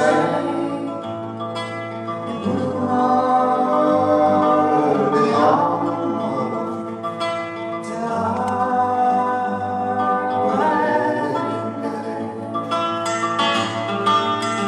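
A song: a singing voice holding long, slowly gliding notes over acoustic guitar, with busier plucked guitar notes near the end.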